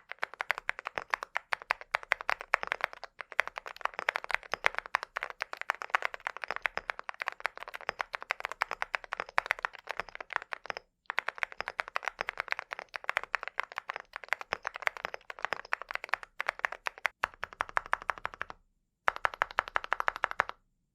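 Fast typing on a mechanical keyboard fitted with alumina ceramic keycaps (Cerakey V2): a dense run of keystroke clacks, broken by short pauses about halfway through and again twice near the end.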